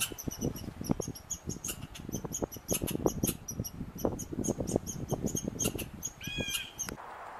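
American red squirrel calling: a rapid, irregular string of sharp, high-pitched chips, several a second, with a short squeal of clear pitch near the end. Wind thumps and rumbles on the microphone underneath.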